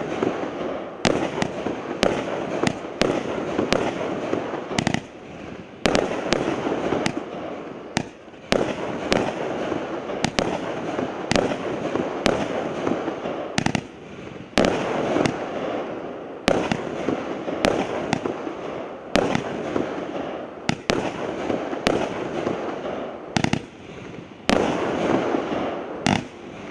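The 'All Pink' multi-shot firework cake firing in quick succession: sharp bangs of shots launching and breaking, about one to two a second, with a continuous hiss between them.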